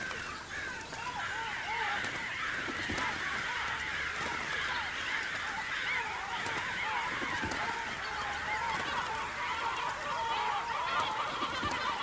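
A large flock of birds calling, many short squawking cries overlapping in a dense, unbroken chorus.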